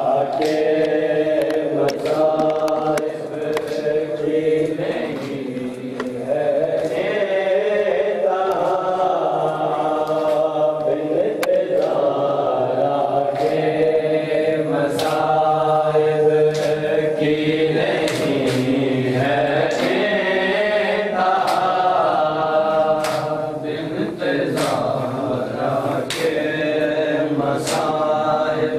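Men's voices chanting a noha, a Shia mourning lament, over sharp open-hand slaps on the chest (matam) about once a second.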